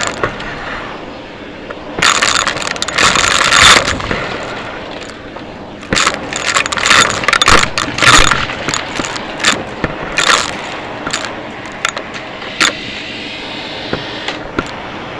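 Vacuum cleaner running steadily, with loud bursts of crackling and rattling as debris is sucked up, twice for a couple of seconds and in scattered sharp snaps.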